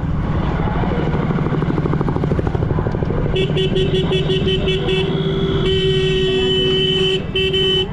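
Motorcycle engine running under way, with a vehicle horn sounding from about three seconds in: a quick string of short beeps, then a long held blast, then one more short blast near the end.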